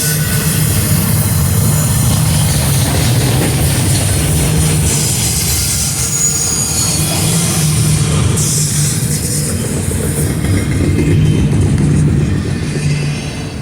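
Train rolling past close by: a steady rumble of railcars with a faint high wheel squeal around the middle, dying away near the end.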